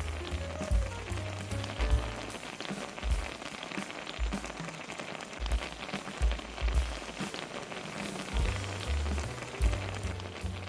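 Tteokbokki sauce bubbling and crackling as it simmers in a shallow pan, over background music whose low beat drops away for a few seconds in the middle.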